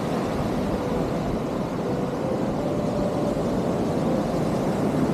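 Steady outdoor noise of wind buffeting the microphone over the wash of ocean surf, a low rumbling hiss.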